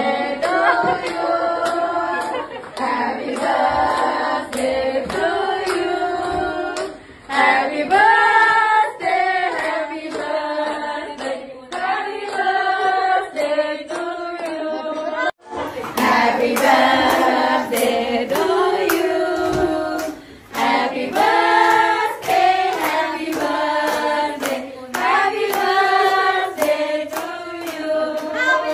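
Several voices singing a song together with steady hand-clapping on the beat. The singing breaks off for a moment about halfway through and then goes on.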